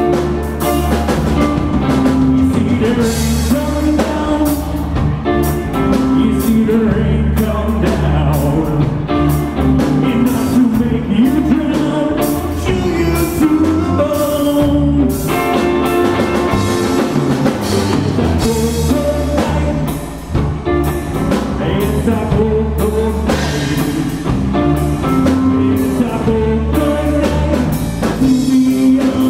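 Live rock band playing: electric guitar, electric bass and a drum kit together, at a steady loud level with a brief dip about twenty seconds in.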